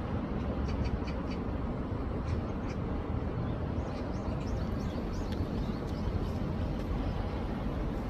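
Steady rushing of a rain-swollen city stream running high, a low rumbling wash with no break, with faint short high chirps scattered through it.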